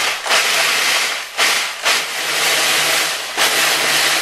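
Cuisinart food processor pulsing, its blade chopping matzo into crumbs: loud whirring and rattling in short on-off bursts, then a longer run of a couple of seconds.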